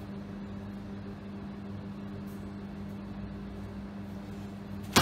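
Steady low mechanical hum with a few constant tones. A single sharp, loud thump comes right at the end.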